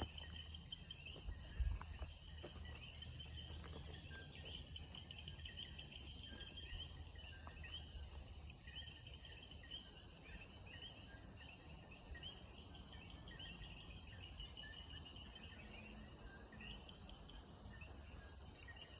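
Pre-dawn chorus of many coquí frogs chirping over and over, over a steady high-pitched insect drone, faint. A couple of low thumps about a second and a half in.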